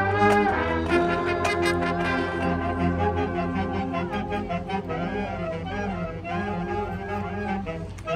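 High school marching band playing sustained brass chords with percussion, entering loudly at the start with several sharp strikes over the first two seconds.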